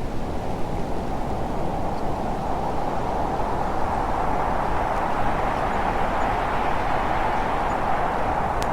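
Blizzard wind blowing steadily and strongly, swelling a little after about three seconds.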